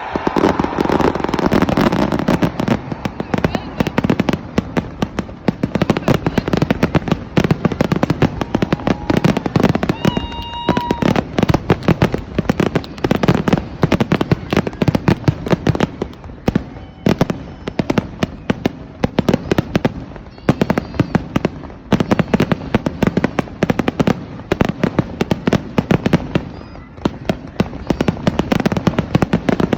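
Fireworks going off in a dense, rapid barrage of bangs and crackles, with a brief whistle about ten seconds in.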